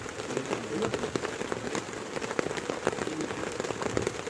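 Heavy rain falling steadily, a dense stream of separate drop hits over a constant rush.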